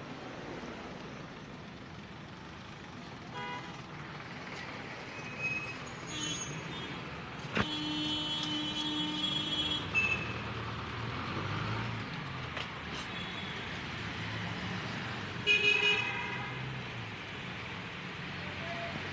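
Busy city-intersection traffic with vehicle horns honking several times: one long blast in the middle and a loud burst of honks near the end. Under the horns runs a steady traffic rumble, with engines getting louder about halfway through as the cars move off on the green signal.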